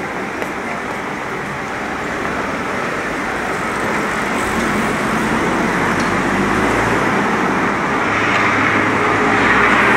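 City street traffic: cars running along the road beside the sidewalk as a steady wash of road noise. It grows gradually louder, with a low rumble strongest around the middle.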